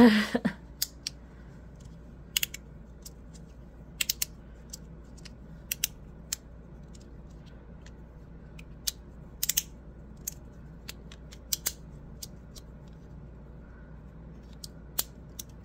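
Magnetic fidget slider with white and black plastic plates being slid back and forth, the plates snapping into place on their magnets with sharp clicks. The clicks come irregularly, a second or so apart, some in quick pairs or short clusters.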